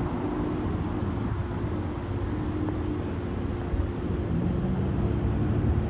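Street traffic: the steady low rumble of vehicles running and passing, with an engine hum through it.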